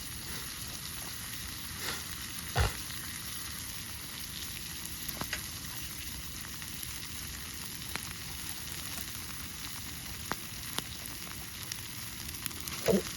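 Steak sizzling on a grill over a wood fire, a steady hiss with occasional sharp clicks and one louder knock about two and a half seconds in.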